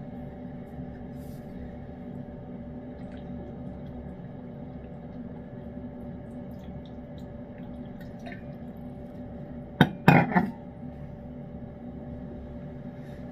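Cat eating wet pâté cat food: faint wet chewing and licking clicks over a steady background hum, with a sharp double knock or clatter about ten seconds in.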